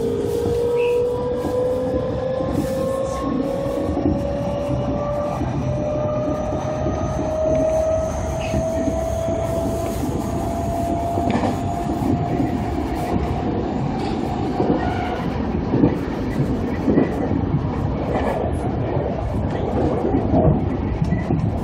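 Electric train accelerating away from a station, heard from inside the front car: the traction motors give a whine that rises steadily in pitch and fades out after about fifteen seconds, over a steady rumble of the wheels on the rails. Scattered knocks of the wheels over rail joints come more often in the second half.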